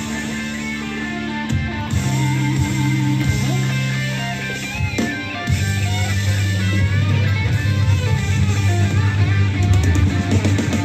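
Rock music with electric guitar and bass guitar, getting louder about halfway through.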